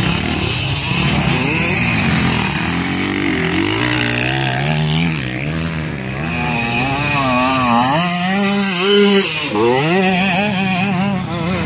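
Several motocross dirt bike engines revving up and down as they ride the track, the pitch rising and falling again and again with throttle and gear changes. One bike comes close and is loudest about nine seconds in.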